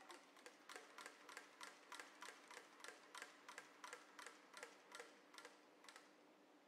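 Faint, even ticking at about three ticks a second, dying away about six seconds in.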